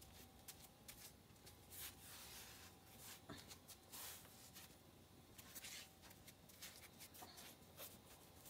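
Near silence broken by faint, scattered rustles and light scuffs: a sock-clad foot nudging a dog that lies on a concrete floor.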